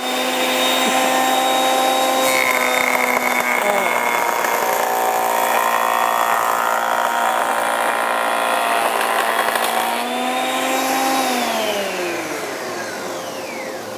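Parkside PADM 1250 A1 jointer-planer running with a steady whine, together with the shop vacuum that starts with it. From about two seconds in, the cutterhead bites into an ash board for several seconds with a rough rumbling and rattling, taking a 1 mm cut that proves too deep for the machine. Near the end the motors are switched off and wind down with a falling whine.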